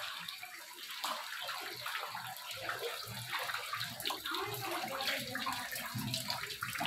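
Floodwater standing inside a house, sloshing and splashing in short, irregular swishes as it is stirred.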